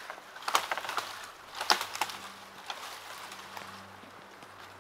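Someone moving over the forest floor while gathering firewood: a few sharp, irregular snaps and crunches of sticks and forest litter in the first two seconds, then quieter.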